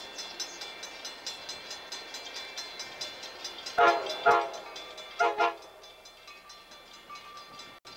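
Multi-chime horn of an approaching Coaster commuter train, sounded as four short blasts in two pairs about four and five seconds in, over a fast, steady high-pitched ringing.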